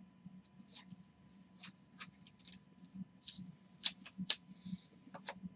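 Basketball trading cards being slid and flicked off a stack in the hands: a light, irregular string of short crisp flicks and swishes, the sharpest two about four seconds in.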